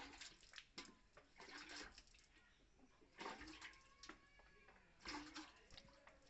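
Milk squirting into a steel pail during hand milking of a cow: faint, short hissing spurts coming irregularly, about once a second.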